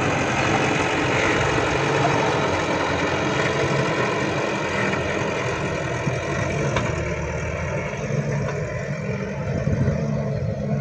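Heavy diesel engine running steadily at an even pitch, the level easing slightly midway.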